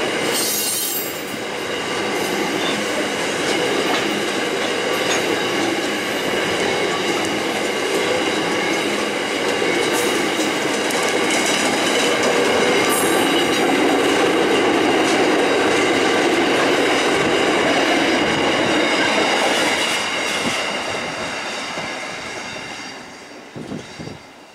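Loaded grain hopper wagons rolling past at close range, coasting downgrade. Their steel wheels clatter over the rail joints under a steady high wheel squeal, and the sound fades away over the last few seconds as the end of the train passes and draws off.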